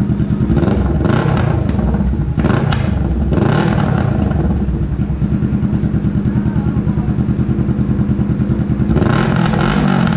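Kawasaki Ninja 650 parallel-twin idling with a loud, even beat through an aftermarket full exhaust, blipped to brief revs about a second in, again near three seconds and near the end. The exhaust backfires on this bike.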